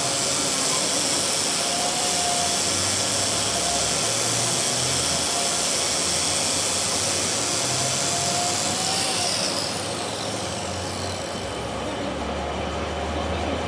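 Workshop machinery running with a steady, dense noise and a faint whine that comes and goes; the high hiss drops away about ten seconds in.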